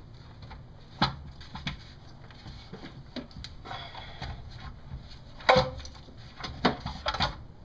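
A plastic intake manifold is being lifted and worked out of a V8 engine bay, knocking and clunking against the engine several times, loudest about five and a half seconds in.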